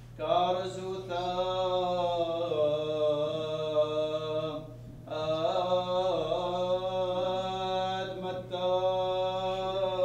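A man's solo voice chanting the Gospel reading in Aramaic, in long held notes that glide slowly, with a breath pause about halfway through. A steady low hum runs beneath the voice.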